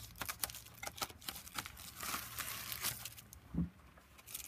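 Bubble wrap and paper crinkling and rustling as journal pages are handled, with scattered sharp crackles and a short low knock about three and a half seconds in.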